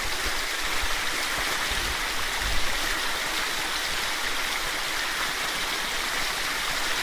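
River water rushing steadily over rocks.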